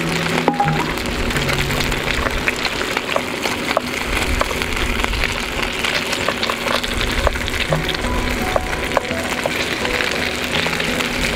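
Pork-belly-wrapped dango skewers sizzling on a hot griddle plate, with the fat crackling and popping, and soft background music underneath.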